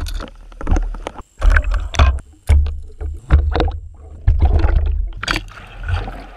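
Water sloshing, gurgling and splashing around an underwater camera as pike strike at lures. It comes in short pieces that change about every second, with deep rumbling and sharp knocks.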